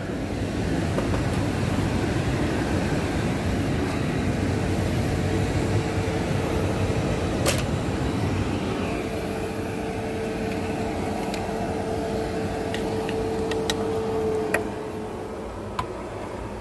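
Steady mechanical drone of airport apron machinery, with a whine holding one pitch through most of it and dropping away near the end, and a few light clicks.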